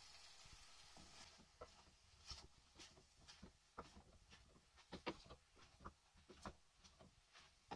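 Faint, irregular taps and scrapes of a wooden spatula stirring minced meat and vegetables in a metal saucepan, about one or two a second.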